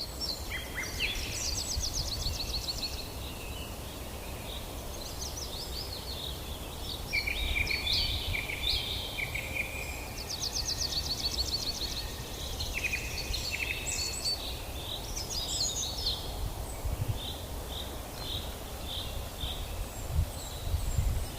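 Several birds singing outdoors: overlapping chirps, short repeated notes and fast trills, over a steady low background rumble.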